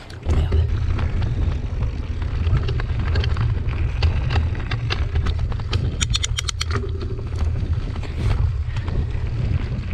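Wind buffeting the camera microphone as a mountain bike rolls fast down a dirt trail, with the bike rattling and clicking over bumps and a short quick run of sharp clicks about six seconds in.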